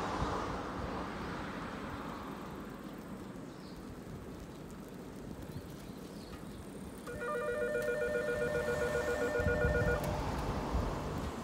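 An electronic bell trills rapidly for about three seconds, starting past the middle: a departure signal for a standing Keisei 3000-series electric train. A low rumble runs underneath throughout.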